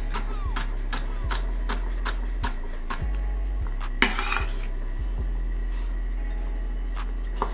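Chef's knife dicing jalapeño on an end-grain wooden cutting board: sharp knife strikes about two a second, with a louder scrape across the board about four seconds in, then only scattered cuts. Background music with a steady bass line plays underneath.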